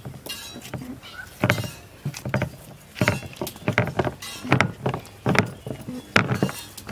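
Hands kneading flour dough in an aluminium bowl: irregular thuds and slaps, about two a second, as the dough is pressed and turned against the bowl.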